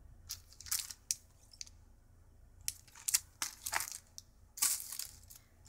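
Clear plastic packaging crinkling in short, separate bursts as packs of stamps are handled, with the loudest crinkles near the end.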